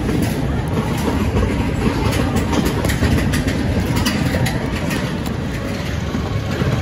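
Space Mountain roller coaster train running on its track: a steady loud rumble and rattle, with a run of sharp clicks in the middle.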